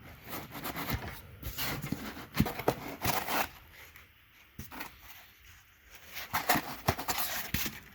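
Packing material and printer parts being handled and pulled from a box: irregular rustling and scraping with small clicks and knocks, coming in two spells with a quieter pause between.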